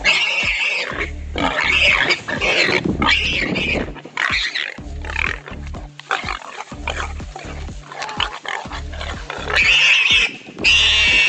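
Warthog squealing in distress, with repeated loud, high, pig-like squeals as a leopard holds it by the neck; the squeals are strongest near the start and again near the end. Background music with a steady bass beat runs underneath.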